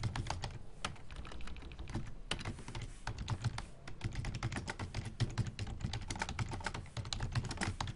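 Typing on a computer keyboard: a steady, rapid run of key clicks.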